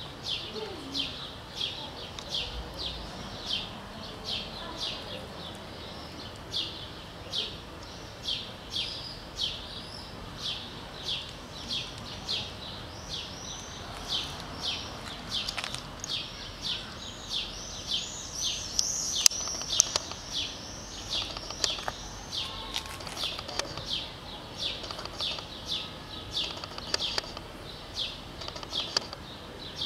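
A small bird chirping over and over, about two short chirps a second. A second, higher and faster chirping joins in for a few seconds past the middle.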